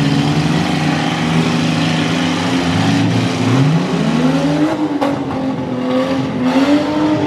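Several demolition derby cars' engines running at once and revving, one climbing steeply in pitch about three and a half seconds in and another rising near the end.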